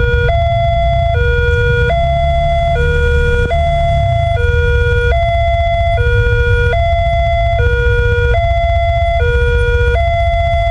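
Railway level-crossing warning alarm sounding a steady two-tone high–low signal, switching pitch about every 0.8 seconds, which warns that a train is approaching. A steady low rumble runs underneath.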